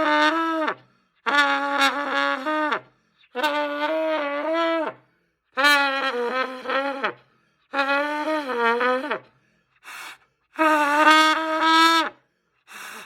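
Trumpet blown by a first-time beginner: about six long, separate notes at roughly the same pitch, each held for a second and a half and sagging in pitch as it ends. Near the end come two short, faint airy puffs.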